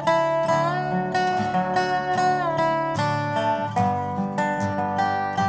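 Acoustic guitar and dobro playing an instrumental intro together, the dobro's slide bending notes up and down in pitch.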